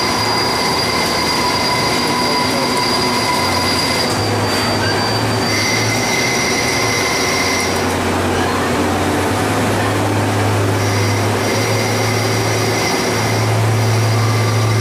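2010 Haas ST30 CNC lathe turning a metal workpiece: a steady machining noise with high whining tones and a low hum that change pitch in steps several times.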